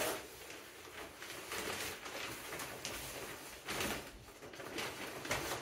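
Soft rustling and scraping from a person moving about and handling things beside a bathtub, with a few louder brief scrapes about a second and a half in, near four seconds, and near the end.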